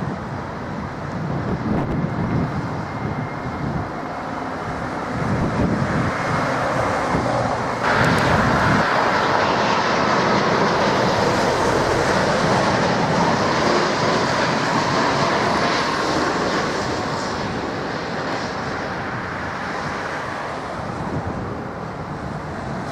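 Jet engine noise from a Boeing 787 Dreamliner with GE engines passing low overhead on final approach. It comes in suddenly about eight seconds in as loud engine noise with a faint steady whine, then slowly fades. Before that there is a quieter jet rumble.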